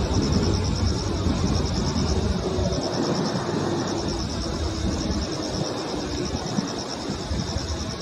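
Insects chirping in a steady, fast-pulsing chorus over a low, uneven rumble that eases off about three seconds in.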